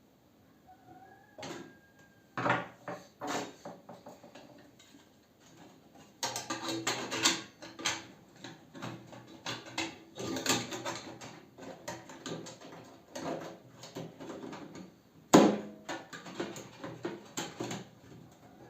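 Knocking and clattering of microwave oven parts being handled during repair, with irregular taps and rattles of metal and plastic and one sharp knock about fifteen seconds in.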